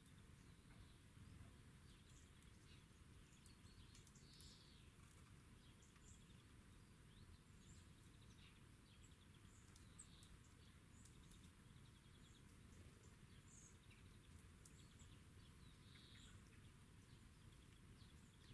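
Near silence: a faint steady low rumble with scattered faint small-bird chirps and an occasional short tick.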